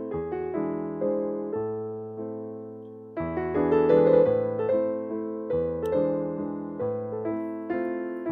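Background music: a solo piano playing a minor-key waltz, its notes struck and left to fade, a little louder from about three seconds in.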